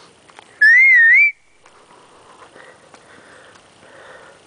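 A person whistling once, loudly, to call a dog. The whistle is short and wavering, going up and down in pitch and lasting under a second, starting about half a second in.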